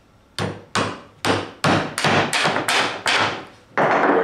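A hammer tapping a steel threaded rod (all-thread) through a drilled hole in the stacked wooden crutch pieces: about ten short taps, coming faster in the middle, until the rod comes out the other side.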